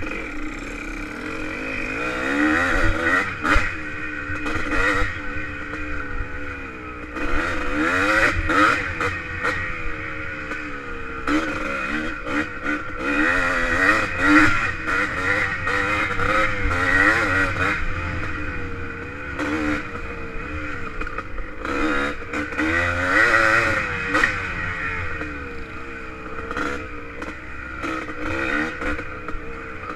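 1985 Yamaha IT200's single-cylinder two-stroke engine running hard, its pitch rising and falling again and again as the throttle opens and shuts. Frequent knocks and rattles come from the bike jolting over rough ground.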